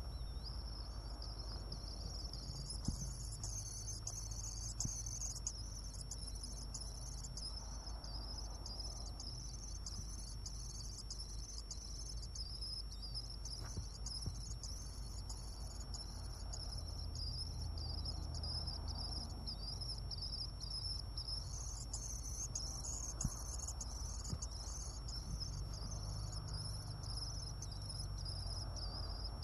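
Swifts in a nest box giving a thin, high, rapidly pulsing chitter that runs on almost without a break, over a faint steady high whine.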